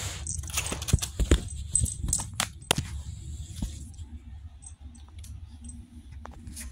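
A kitten bumping and rubbing against the phone and tripod that are filming it. There is a quick flurry of clicks and knocks in the first three seconds, then scattered light taps over a low rumble of fur brushing the microphone.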